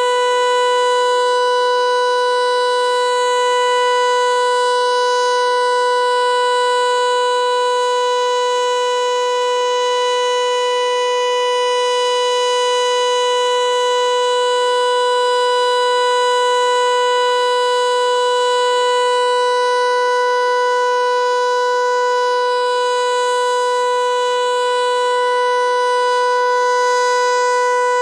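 Federal Signal Eclipse 8 electronic outdoor warning siren sounding its full alert signal: one loud, steady, unwavering tone with no rise or fall in pitch, its level swelling and fading slightly.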